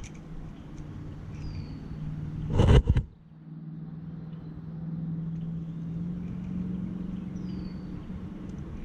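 A steady low engine hum, a little higher in pitch after about six seconds, with a loud brief rustle or thump about two and a half seconds in and two short falling bird chirps.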